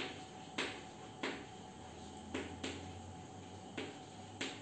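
Chalk writing on a blackboard: about six short, sharp chalk strokes and taps at uneven spacing, over a faint steady hum.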